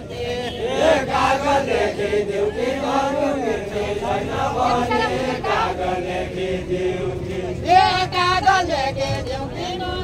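A group singing a Deuda folk song unaccompanied: several voices chant a long, gliding melodic line together.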